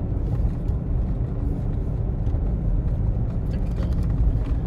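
Steady low road and engine rumble of a moving car, heard from inside the cabin.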